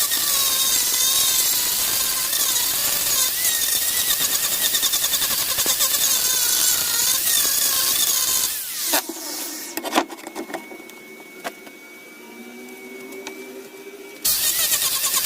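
Power tool running on wood, its motor pitch wavering as it works. About nine seconds in it gives way to a much quieter stretch with a faint steady whine and a couple of sharp clicks. The tool sound returns near the end.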